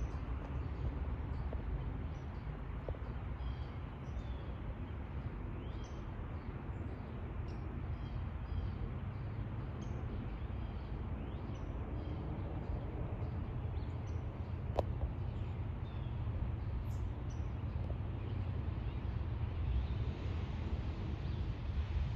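Small birds chirping again and again over a steady low outdoor rumble, with one sharp click about two-thirds of the way through. Near the end a broad hiss grows louder: the first of an approaching airliner's jet noise.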